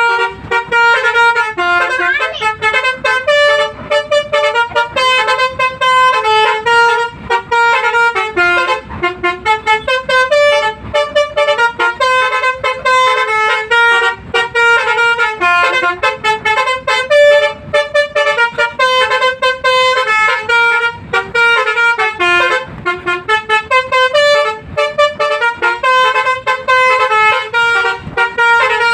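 Basuri V3 telolet bus horn playing a fast melody of loud multi-tone honks, the notes changing pitch several times a second without a break.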